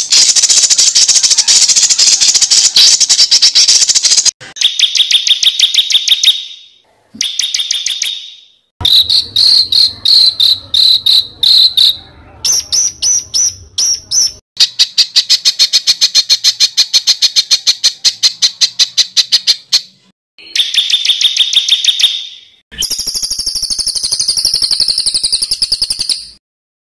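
Recorded songbird calls edited together: rapid rattling trills and chattering notes in about eight separate bursts, each a few seconds long and cut off abruptly.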